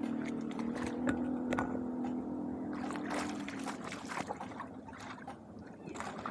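Bare feet splashing and wading through shallow muddy floodwater, a run of splashes from about halfway through. A steady engine hum sounds under the first half and fades out.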